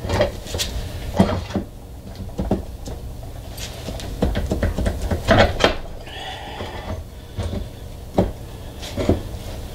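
Irregular clicks and knocks of a new bearing carrier being wiggled and pushed into a Mercury Optimax outboard's lower-unit gear housing over the propeller shaft.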